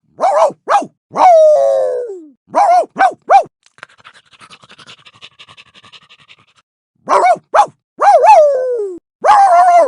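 Cartoon dog sound effect: short yapping barks, a long whine falling in pitch, and a run of quick panting. Near the end come more barks and a second falling whine.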